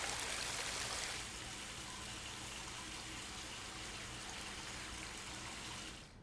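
Water running steadily, a continuous splashing hiss, louder for about the first second and then settling to an even level.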